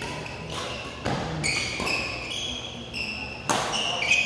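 Badminton doubles rally: sharp racket strikes on the shuttlecock, the loudest two near the end, with short high squeaks from court shoes on the floor between them.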